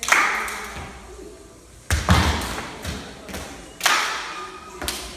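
Tap shoes striking a hard floor in loud clusters of taps about every two seconds, each cluster ringing out and fading before the next.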